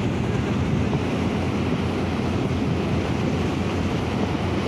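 A boat under way: a steady low engine rumble and rushing water, with wind buffeting the microphone.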